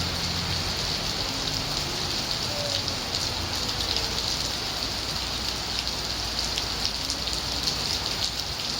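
Steady rain falling, an even hiss dotted with many small ticks of drops hitting surfaces.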